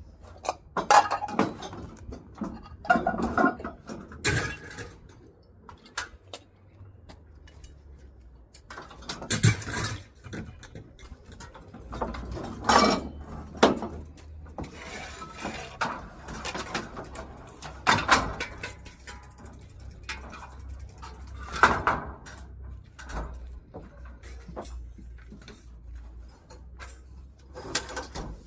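Irregular knocks and clatters of hard objects being handled, a loud one every two to four seconds over a low steady rumble.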